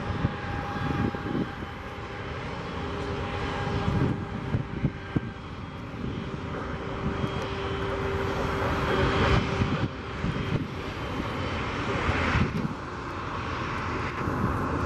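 Jet airliner engines running at low taxi power: a steady tone over rushing noise, changing abruptly a few times in the second half.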